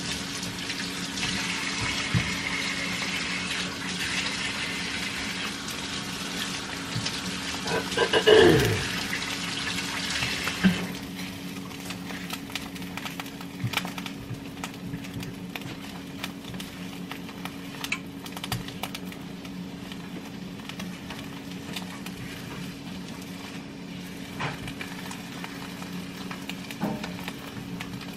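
Kitchen sink faucet running while hands are washed, a steady hiss of water with a brief louder sound about eight seconds in; the water shuts off about ten seconds in. After that only faint ticks and scrapes are left, over a steady low hum.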